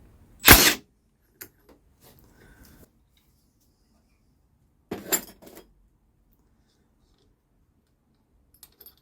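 Metal engine parts being handled and set down on a workbench: a loud clatter about half a second in, another about five seconds in, and a few faint clicks near the end.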